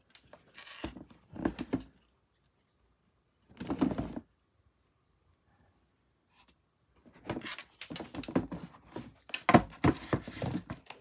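A pair of sneakers being handled and shifted on a cardboard shoebox: rustling and scraping in several bursts, with a few sharp knocks near the end as the shoes are set down.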